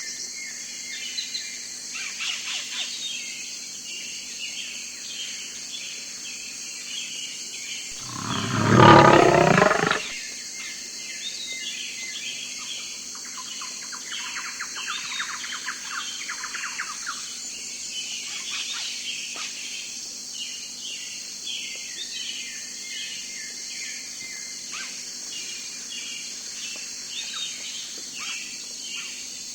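Small birds chirping and twittering throughout over a steady high hiss. About eight seconds in, a single loud animal call of about two seconds drowns them out.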